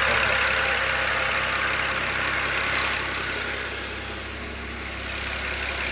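BMW X6's freshly replaced twin-turbo inline-six (N54) idling steadily. It runs quietly, with no sign of the rod knock that condemned the old engine.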